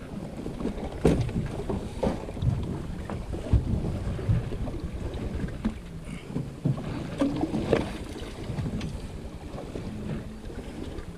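Water slapping and lapping against the hull of a small boat at sea, with wind buffeting the microphone and scattered irregular knocks.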